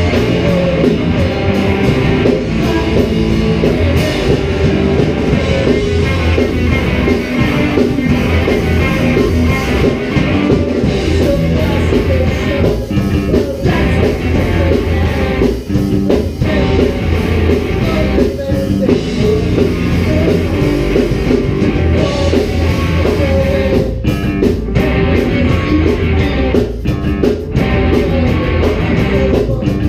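A rock band playing live in a rehearsal room: distorted electric guitars, bass guitar and a drum kit.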